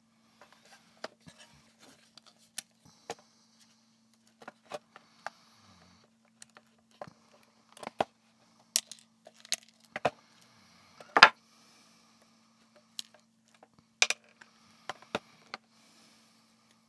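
Small black plastic device case and parts being handled and pressed together on a wooden tabletop: scattered light clicks and knocks, the loudest knock about eleven seconds in. A faint steady low hum runs underneath.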